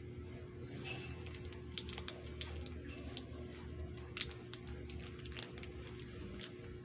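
Scattered small clicks and crackles from handling Sugus chewy candies and their wrappers, irregular and sharp, over a steady low hum.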